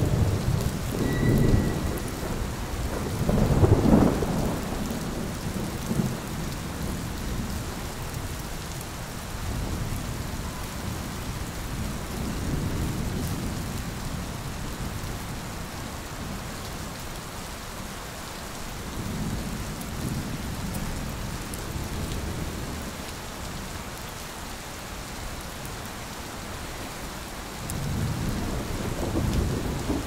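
City street ambience in a heavy snowstorm: a steady hiss with low rumbles that swell and fade every several seconds, the loudest right at the start and about four seconds in.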